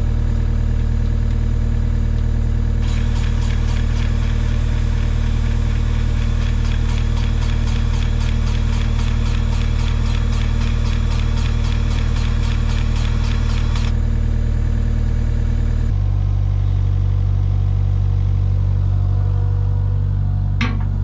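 Kubota KX057-4 mini excavator's diesel engine running steadily. A fast rhythmic clicking from the grease gun pumping grease into the swing gear runs through the middle, stopping a couple of seconds before the engine's note shifts to a deeper hum.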